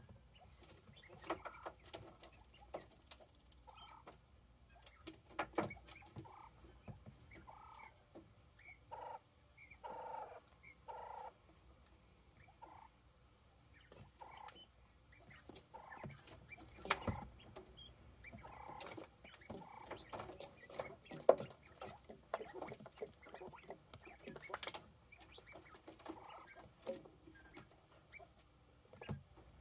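Quail giving short, soft calls, several in quick succession about ten seconds in and again about twenty seconds in, among many scattered sharp clicks and taps.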